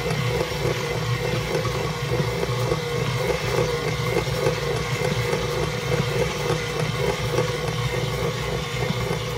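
Electric stand mixer motor running steadily under load as its dough hook kneads a sticky bread dough in a stainless steel bowl.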